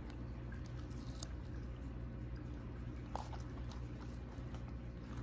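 Home's hinge-back tortoise biting and chewing strawberry: soft, scattered crunching clicks, a few of them sharper, over a steady low hum.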